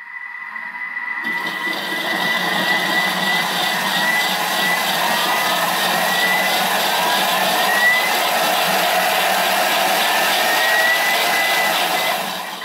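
Electric blender running, blending mushroom sauce. The motor starts about a second in and runs steadily with a whine that drifts up in pitch several times, then cuts off at the end.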